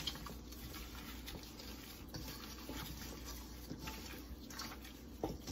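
Gloved hands rubbing and kneading seasoned raw chicken leg quarters in a stainless steel bowl: faint wet squishing and rubbing with a few light clicks.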